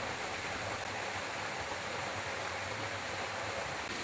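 Small jungle stream running over rocks: a steady, even rush of water.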